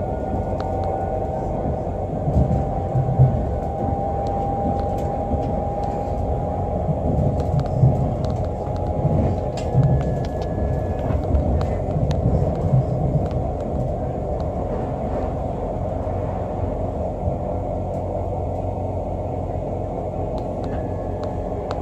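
Interior running noise of a Class 365 Networker Express electric multiple unit in motion: a steady rumble of wheels on rail, heavier and uneven through the first half. A steady high whine rises slightly and stops about ten seconds in.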